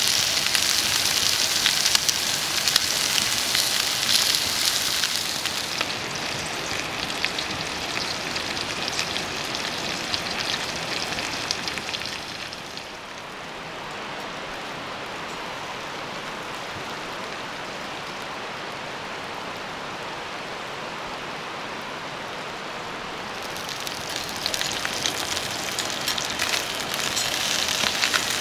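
Steady rain falling, an even hiss of drops. It turns quieter and duller a little under halfway through, then grows brighter and louder again near the end.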